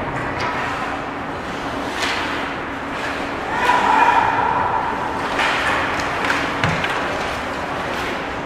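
Ice hockey play on a rink, heard from outside the glass: skates scraping the ice and sharp clacks of sticks and puck over a steady arena hum, with a louder swell of sound about three and a half seconds in.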